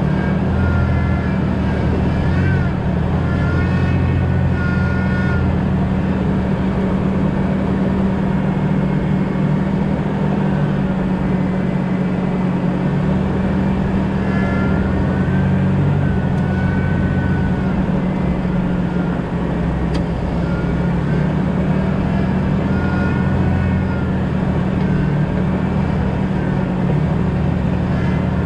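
2000 Jeep Cherokee XJ driving with steady engine and road noise, while a faint, wavering high whine comes and goes.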